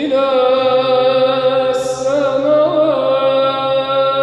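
A solo male voice chanting a long, drawn-out melismatic phrase of Arabic Byzantine chant, with ornamental turns in the middle, over a steady low held drone note. A fresh phrase begins right at the start after a brief drop.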